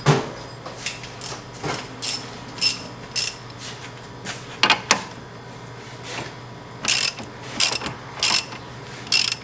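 Hand ratchet clicking in short, irregular strokes, about one every half second with a brief pause partway through, as a nut on a new sway bar link is tightened by hand.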